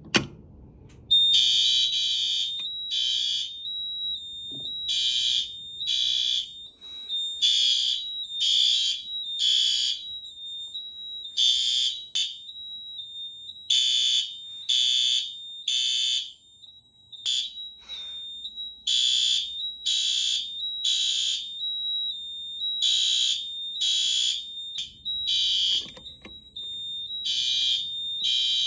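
Fire alarm horn strobe (System Sensor SpectrAlert Advance P2W) sounding in alarm with loud, high-pitched horn beeps, repeating in rough groups of about three with short pauses between groups, typical of the temporal-three evacuation pattern.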